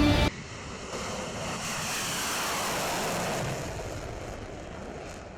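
A loud jet sound cuts off abruptly a moment in. Then a jet aircraft's rushing noise swells, slides down in pitch as it passes, and fades.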